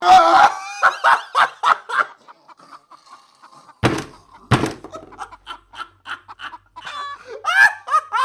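Snickering laughter in short bursts, with two sharp thuds about four seconds in.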